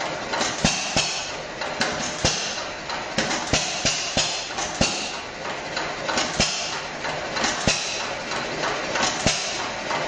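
Hit-and-miss stationary engine running, firing at irregular intervals: sharp bangs about one to two a second over a steady hiss. Each bang is a firing stroke let through by the governor as the flywheel slows.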